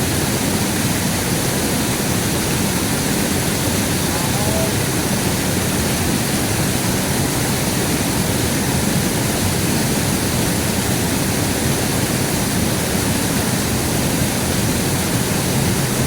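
River water rushing past, a steady, unbroken noise.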